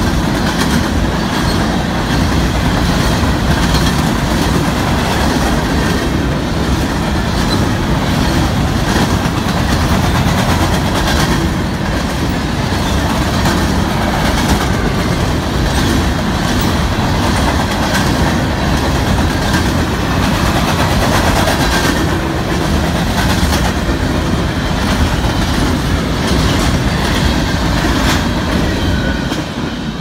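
Covered grain hopper cars of a freight train rolling past close by: a loud, steady rumble with the clickety-clack of wheels over the rail joints.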